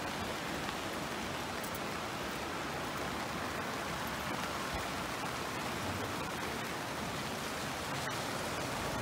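Steady rushing of the flooded river Kyll, the brown floodwater running high and fast, an even unbroken water noise.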